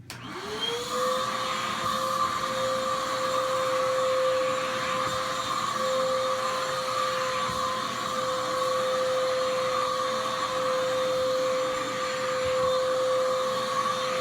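Oreck XL handheld vacuum cleaner switched on, its motor spinning up over about a second to a steady whine, then running steadily with a rush of air.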